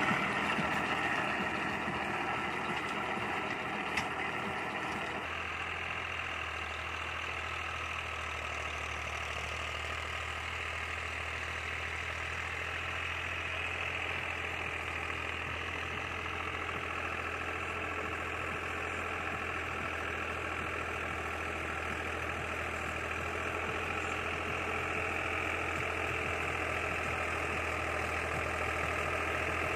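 Deutz-Fahr Agromaxx 50 hp tractor's 3000 cc diesel engine running steadily under load while it drives a rotavator through the soil. About five seconds in, the sound turns to a smoother, steady low hum.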